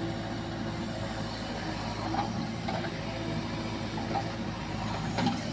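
Diesel engine of a JCB 3DX backhoe loader running steadily while its backhoe works a load of soil, with a few faint knocks.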